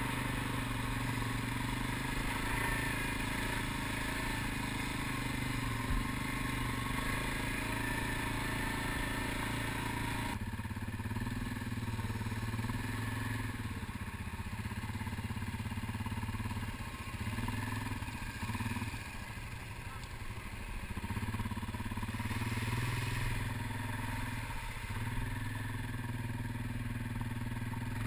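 ATV engine running under way while the quad is ridden across sand and into shallow river water. The engine note stays steady for the first half, then dips and rises with the throttle for a few seconds past the middle.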